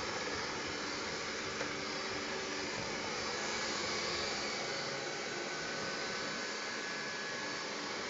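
Xiaomi Mi Robot Vacuum (first generation) running as it cleans the floor: the steady, even hiss of its suction fan, with a faint hum.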